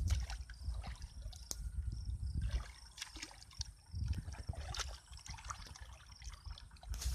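Hands sloshing and groping through shallow muddy water, with small trickles and splashes over an uneven low rumble.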